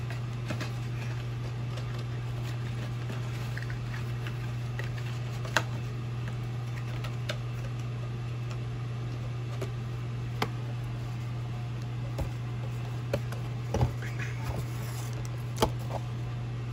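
A steady low electrical hum with a few scattered light clicks and taps, mostly in the second half, from a cardboard trading-card box and foil card packs being handled.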